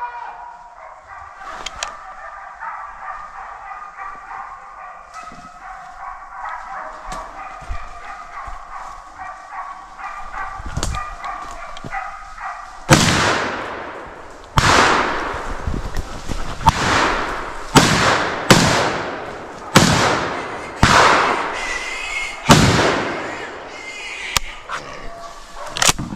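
Hunting dogs baying in the distance, then from about halfway through a rapid series of about ten loud shotgun shots, roughly one a second, each trailing off in an echo.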